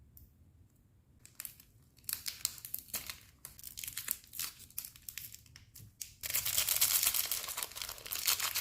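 Packaging being torn open and crinkled by hand. It starts as a few faint crackles, grows into irregular tearing about two seconds in, and becomes a dense, continuous crinkling about six seconds in.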